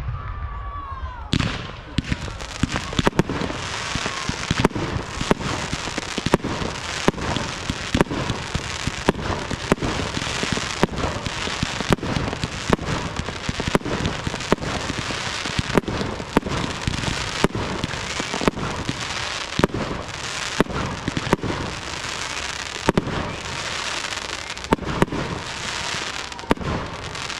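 Fireworks display: sharp bangs of bursting shells, about two a second, over a steady dense hiss.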